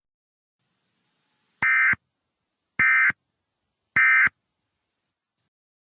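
Emergency Alert System SAME digital data tones: three identical short bursts of warbling data about 1.2 s apart, the end-of-message code that closes the alert.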